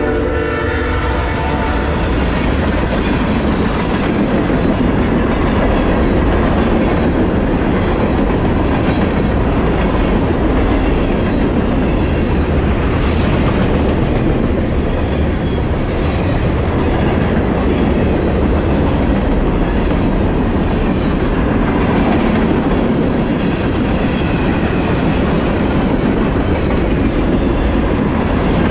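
Freight train passing close by: the locomotive horn's last note dies out about half a second in, then the steady rumble and clickety-clack of freight cars' wheels rolling over the rails.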